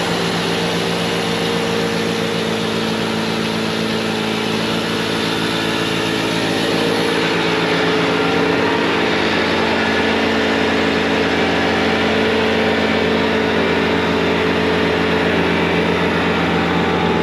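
Bobcat T66 compact track loader's diesel engine running at full throttle, powering a snowblower attachment through wet, heavy snow. A steady, loud drone that grows a little louder about eight seconds in.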